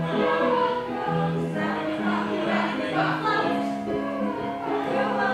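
Music with a group of voices singing together, holding notes that step from one pitch to the next.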